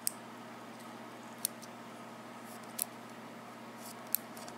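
Small, sharp metallic clicks, about four of them spaced over a second apart with one doubled, as tiny top pins and springs are worked out of a Yale 6-pin lock cylinder's housing with small tools. A faint steady hum lies under the clicks.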